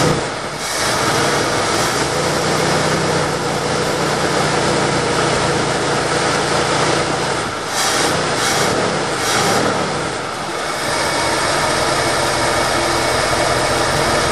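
1972 Ford F100's 360 FE big-block V8 running steadily on high idle while cold, just after starting, with its note dipping briefly about half a second in and twice more later on.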